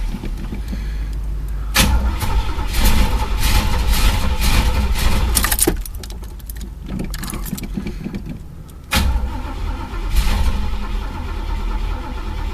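Chevy El Camino engine being cranked over by the starter in two long bursts without starting, because no fuel is reaching the carburettor.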